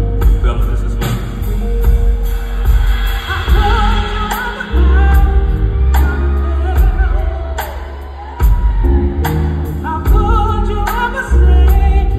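Live band and singer heard from the audience in a large hall: a sung vocal melody over drums, bass, electric guitars and keyboards, with a heavy bass line that drops out briefly about eight seconds in.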